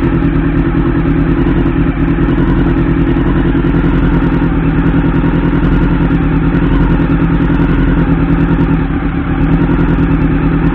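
1989 Honda CB-1's inline-four engine running steadily on a little held throttle while cold, with no choke, and close to stalling. The exhaust note sags briefly about nine seconds in, then picks back up.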